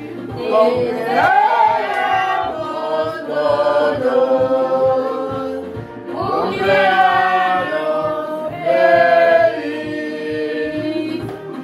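A group of voices singing together in a lively celebration song, over a steady rhythmic beat.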